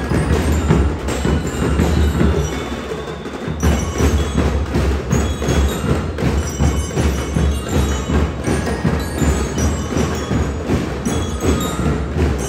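A drum and lyre corps playing: bass and snare drums beat a steady rhythm under a ringing bell-lyre melody. The drums drop back for a moment about two to three seconds in, then come back in full.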